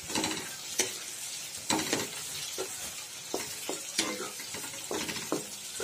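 Sliced onions and ginger-garlic paste sizzling in hot oil in a kadai, being fried until the raw smell of the paste goes. A spatula scrapes and knocks against the pan at irregular moments, about once a second, as the mixture is stirred.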